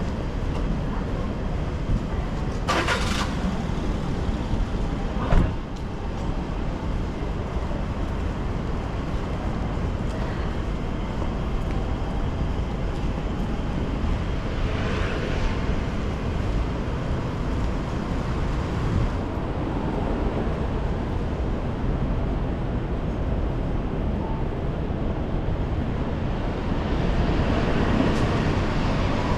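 Rainy city street ambience: a steady wash of road traffic with rain and a low wind rumble. There is a brief hiss about three seconds in, a sharp click a couple of seconds later, and traffic noise swells near the end.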